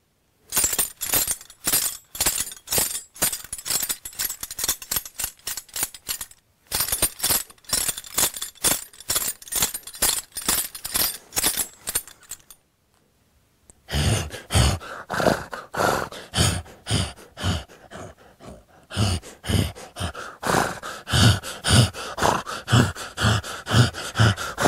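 Foley performance of a horse's bridle: metal tack jingling and clinking in a steady walking rhythm. After a pause of about a second and a half it resumes, now with deeper thuds in the same rhythm.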